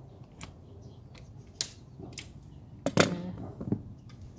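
Screwdriver and outdoor light fixture clicking as the fixture's mounting screws are taken out: a few separate clicks, and a louder clack about three seconds in as the fixture comes loose.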